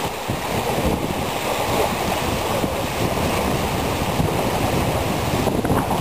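Strong wind rushing and buffeting the microphone, with small river waves lapping and breaking on a sandy shore; a steady, rough rushing noise.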